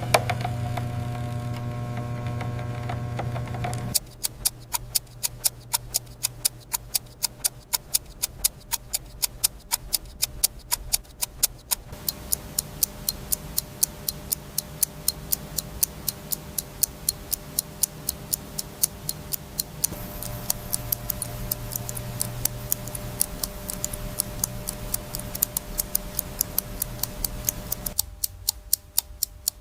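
Rapid, even ticking, about five ticks a second, like a mechanical watch movement running. It starts about four seconds in, after a steady low hum, over a soft background that shifts every few seconds.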